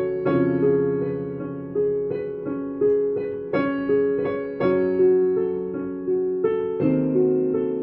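Piano playing a melody over chords at an even pace, each note struck and then fading.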